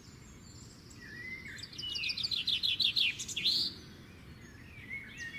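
Small birds chirping, with a quick run of about ten short, falling notes near the middle, over a faint background hiss.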